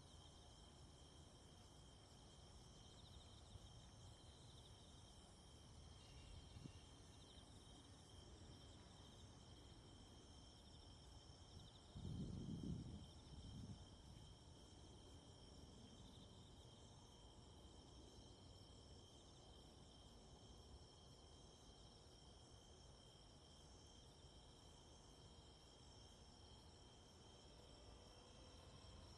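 Near silence with a faint, steady chirring of night crickets. A brief low rumble comes about twelve seconds in.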